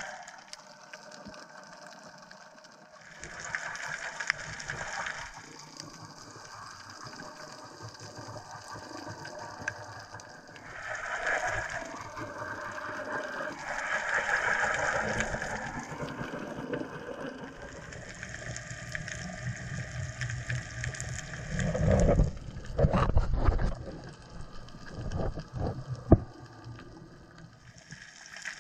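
Water movement heard underwater through a camera's housing: hissing surges that swell and fade, then heavier low rumbling surges with a few sharp knocks in the last third.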